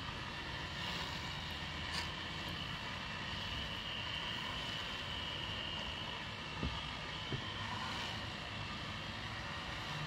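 Chainsaw running steadily, cutting into the trunk of a standing tree being felled, with two faint knocks about two-thirds of the way through.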